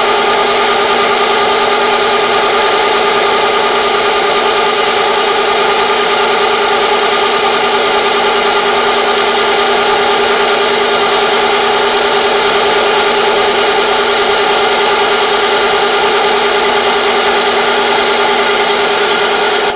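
Benchtop mini lathe running steadily with a whine from its motor and gearing as it turns an ABS tone ring, cutting it down into a spacer.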